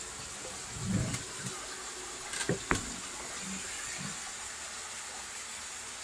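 Steady background hiss, with a few dull knocks about a second in and a sharp click just under three seconds in.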